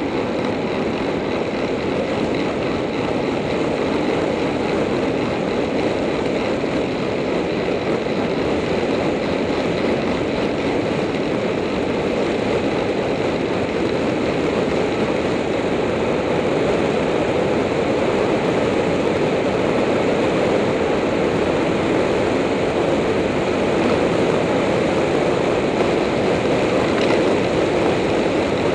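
Steady rush of wind noise over a handlebar-mounted camera's microphone as a road bike descends at speed.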